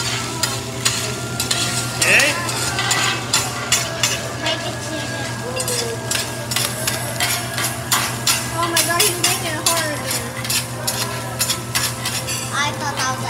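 Two metal teppanyaki spatulas scraping and tapping on a hot steel griddle as fried rice is pushed and patted into a mound, with many quick clicks and scrapes over the steady sizzle of the rice and a constant low hum.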